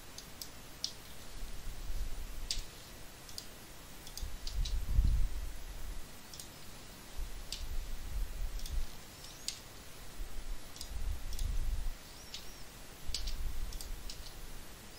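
Scattered sharp clicks from a computer mouse and keyboard, irregular and a few at a time, with patches of low muffled rumble now and then.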